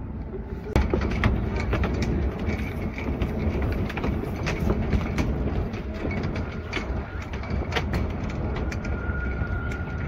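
Footsteps on a footbridge, sharp clicks about twice a second, over a steady low city rumble. A faint steady whine comes in near the end.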